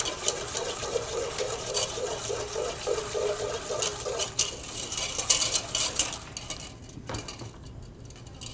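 Wire piano whisk beating a milk-thickened roux sauce in a metal saucepan, clicking and scraping against the pan in a quick, steady rhythm. It dies down about six seconds in.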